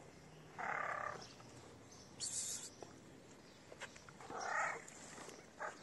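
A stray cat meowing twice, two short calls about three and a half seconds apart, begging for food. A brief high hissing noise falls between the two meows.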